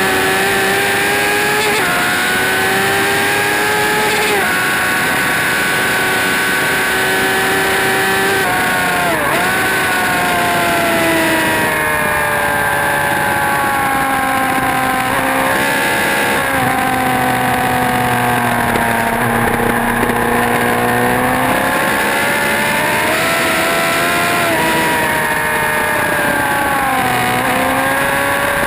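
Motorcycle engine running hard on a race track, its pitch climbing through the revs, dropping suddenly at each gear change and sagging and rising again through the corners, over a steady rush of wind noise.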